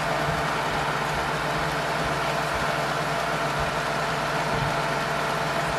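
HP DeskJet 3755's sheet-feed scanner drawing a page through while scanning: a steady motor hum with several even whining tones.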